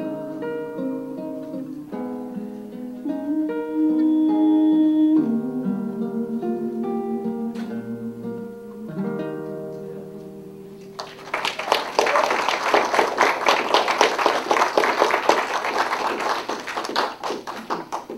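Acoustic guitar playing the closing bars of a slow country ballad, the last notes ringing out and fading about ten seconds in. Then an audience applauds for about seven seconds.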